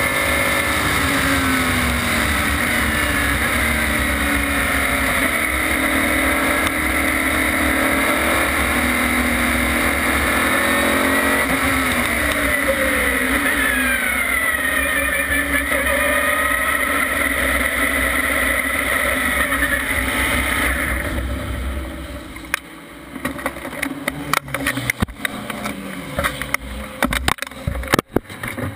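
In-car sound of an LMPC prototype's Chevrolet V8 at racing speed, its pitch dropping on downshifts about a second in and again around eleven seconds in before climbing back under acceleration. About twenty-one seconds in the engine note falls away and a run of sharp clicks and knocks follows as the car sits in its pit box.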